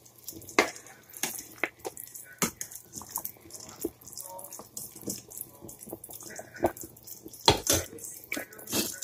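Metal spoon stirring beef broth in a stainless steel pot: irregular clinks and knocks of the spoon against the pot with splashing of the liquid, and a louder clatter about seven and a half seconds in.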